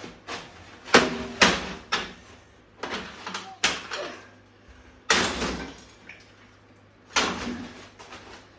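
Sharp blows and clattering as a GE 26CT622 CRT television, its picture tube already broken open, is smashed apart with a hammer. About nine impacts come in uneven clusters, the loudest about a second in.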